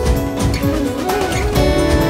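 Background music: sustained instrumental tones over a regular percussive beat.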